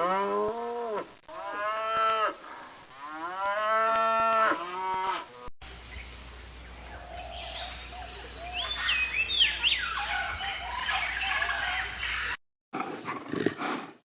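Cow mooing three times, each a drawn-out call that rises and falls in pitch, over the first five seconds. Then comes a steady noisy background with a few short bird-like chirps, and a brief different burst near the end.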